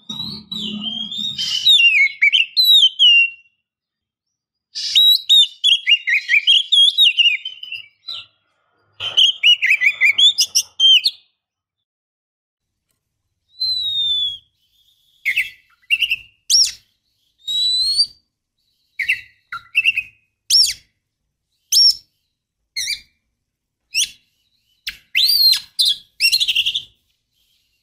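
Oriental magpie-robin (kacer) singing. First come three long phrases of rapid, varied whistled warbling. After a short pause comes a string of separate sharp, clear whistled notes about a second apart.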